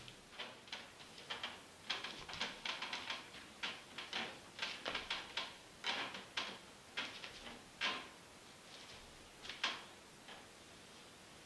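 Footsteps of one sandal and one bare foot on a tiled floor and rug, heard as light, irregular clicks and taps. These are the uneven steps of someone walking on an injured, bandaged knee. The steps are densest in the middle and thin out near the end.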